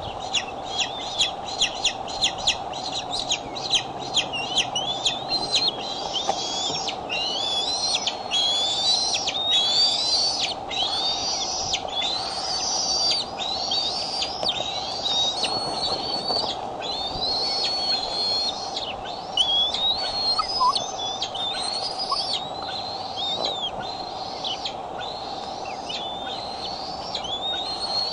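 Young bald eagle calling over and over in high, thin notes: a quick run of short peeps for the first few seconds, then longer rising squeals about one a second, the repeated food-begging calls of an eaglet. A steady hum runs underneath.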